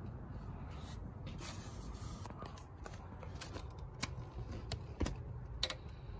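Light rustling and scraping with a few sharp, irregular clicks over a low steady rumble: handling noise as a handheld camera is moved around a car's engine bay.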